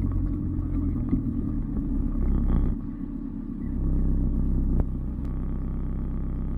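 Off-road 4x4's engine running, a deep rumble that dips for a moment about three seconds in and then settles to a steady drone, with a single sharp click about five seconds in.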